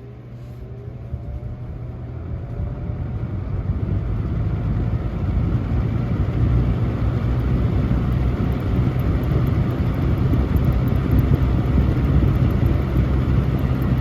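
Air King 9723 box fan starting up on its low setting: a faint motor whine rises in pitch as the blades spin up, and the air rush grows over the first five seconds or so, then runs steadily with a strong low hum.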